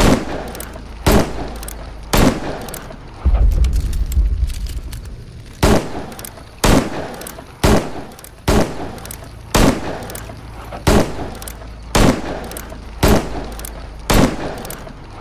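Smith & Wesson Model 10-7 .38 Special revolver firing single shots about one a second, around a dozen in all, each with a short echoing tail. A low rumble fills a longer pause about three to five seconds in.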